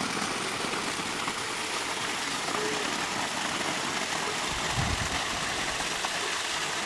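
Pool water feature running: a sheet of water pouring from a stone wall into the pool, making a steady splashing rush.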